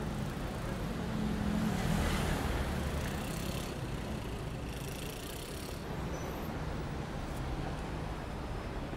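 Low steady background noise, like distant road traffic, swelling slightly about two seconds in, with a couple of faint rustles.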